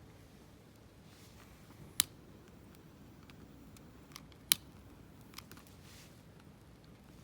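A few short, sharp clicks over quiet room tone, two of them much louder than the rest, about two and a half seconds apart.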